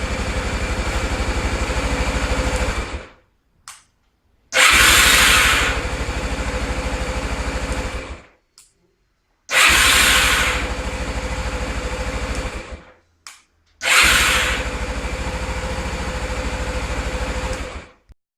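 A motor-driven mechanism on a vehicle runs four times for about three and a half seconds each. Each run starts with a louder hiss, settles into a steady fast whir, then winds down. Short clicks fall in the gaps between runs.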